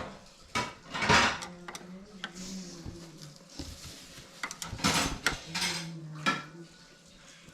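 Hard, metallic clinks and knocks of bike parts and tools being handled during assembly, a string of separate sharp strikes, the loudest about a second in and again around five seconds in.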